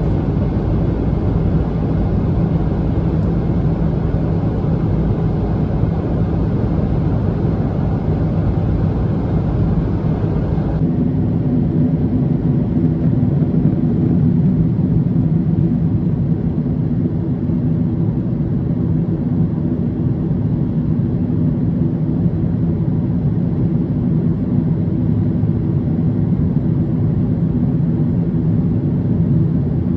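Steady in-flight cabin drone of a Boeing 777-300ER: airflow and engine hum heard from a seat in the cabin. About eleven seconds in the tone changes abruptly, the upper hiss dropping away and the hum shifting pitch.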